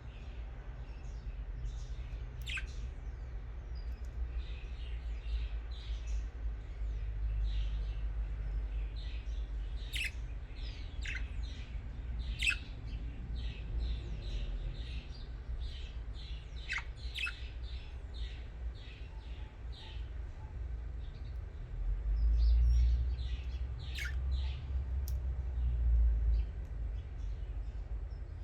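Pet budgerigars chirping and chattering in quick short notes, with a sharp high call every few seconds that drops in pitch. A steady low rumble runs underneath and swells for a few seconds near the end.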